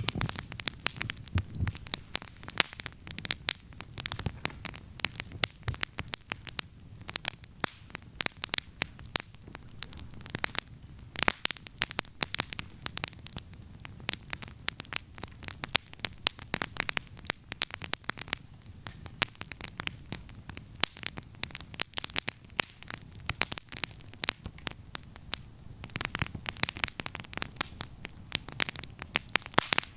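Wood campfire crackling: a dense run of irregular sharp snaps and pops over a low, steady rumble.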